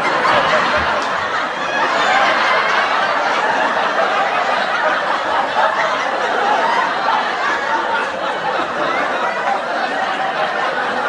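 Sitcom laugh track: a studio audience laughing together, starting suddenly and continuing steadily, easing slightly toward the end.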